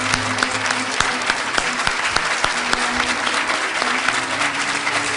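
Large audience clapping: dense, steady applause, with faint music beneath it.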